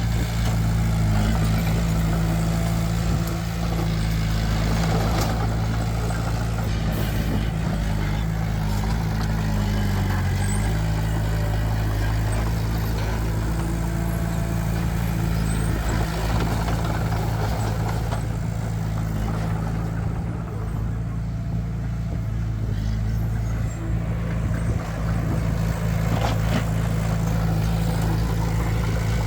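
Large diesel engine of heavy construction machinery running steadily at constant speed, with a few faint knocks.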